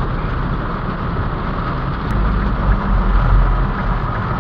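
Heavy rain falling on a car, heard from inside the cabin over the running engine and road noise. A low rumble swells for about a second, around two and a half seconds in.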